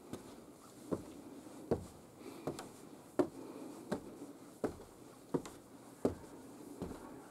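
Footsteps climbing wooden stairs: about ten even thuds on the timber treads, roughly one every three quarters of a second.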